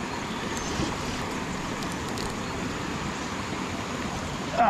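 Steady rush of river water running over rocks in a shallow riffle.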